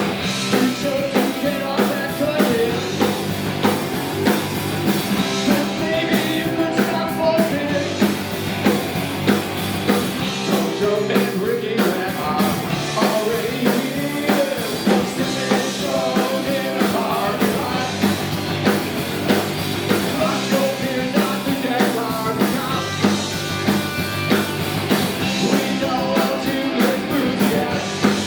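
Live rock band playing an uptempo rock and roll song, with a drum kit keeping a steady beat under the melody.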